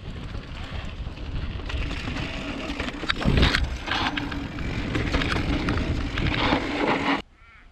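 Mountain bike ridden along a dirt trail: wind buffeting the body-mounted camera's microphone, with tyres running over the dirt and the bike rattling and knocking over bumps. The noise cuts off abruptly near the end, leaving faint bird chirps.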